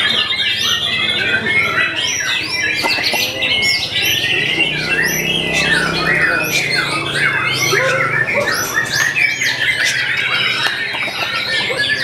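White-rumped shama (murai batu) song: a loud, unbroken, fast stream of varied whistles, trills and harsh squawking notes.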